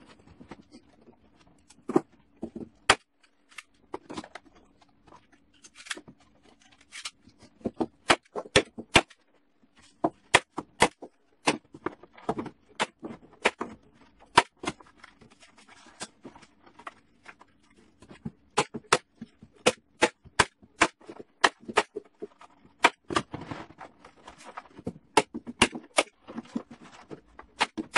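Manual staple gun firing staples through a plastic tarp into wood: dozens of sharp snaps, irregularly spaced and often one or two a second, with the tarp rustling as it is handled between shots.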